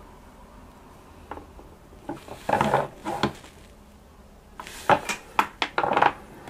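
Hard plastic clicks and knocks as an action figure is handled and posed and set onto a clear plastic display stand on a desk. There are two short clusters of clatter, a few seconds apart.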